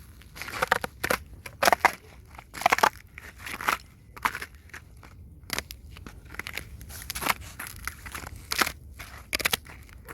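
Tapping and scratching on icy, crusted snow: irregular crunchy scrapes and short taps, one or two a second.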